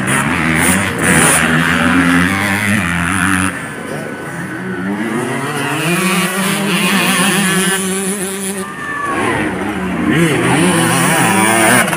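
Motocross dirt bike engines revving up and down as riders race over the track jumps, with a person's voice talking over them.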